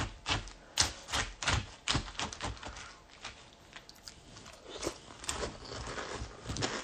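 Irregular crunching clicks of someone chewing dry cereal close to a phone's microphone, about a few sharp ticks a second, uneven in loudness.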